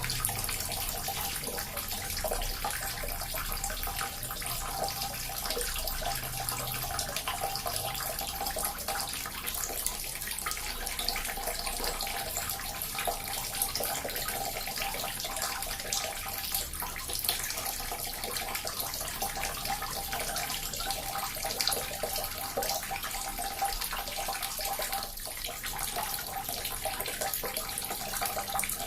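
Small water fountain running steadily: continuous splashing and trickling of falling water.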